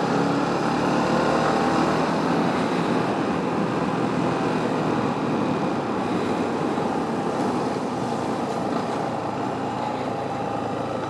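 Motorcycle engine running steadily while riding, its note easing down a little in the first few seconds, under a constant rush of wind and road noise.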